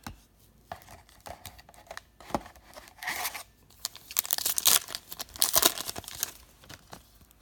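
Trading card pack wrappers being torn open and crinkled by hand, with light clicks of cards being handled first; the tearing and rustling is heaviest in the middle seconds.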